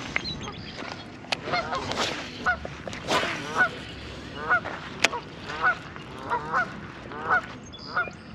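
Geese honking over and over, a dozen or so short calls coming roughly two a second. A single sharp click sounds about five seconds in.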